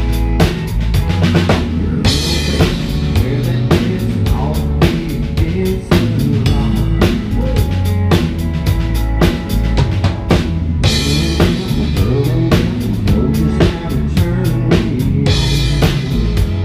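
Live band playing loudly: a drum kit beating steadily under electric guitar, heard close from the stage.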